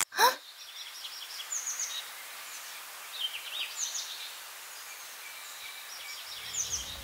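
A short falling whoosh at the start, then a steady hiss of outdoor-style ambience with several bursts of quick bird chirps. Low music comes back in near the end.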